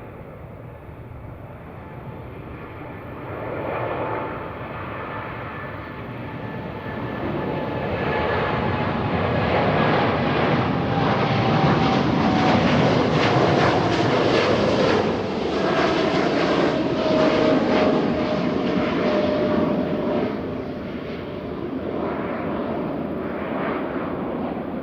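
A jet airliner's engines passing by, building to a peak and then easing off, with a whine that falls slowly in pitch as the aircraft goes past.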